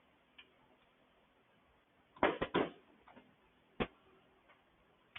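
A few light clicks and knocks of metal engine parts and hand tools being handled on a workbench: a quick cluster of three about two seconds in, then a single sharper click near four seconds.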